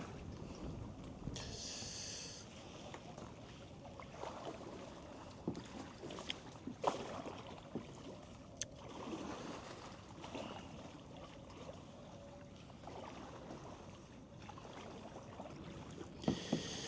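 Faint sounds of kayak paddling through a narrow channel: water splashing and dripping, with scattered short knocks of paddles.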